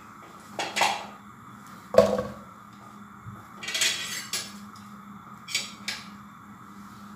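Whole peeled shallots dropped by hand into a non-stick frying pan, landing as a few separate knocks and clatters, the loudest about two seconds in, over a faint steady hum.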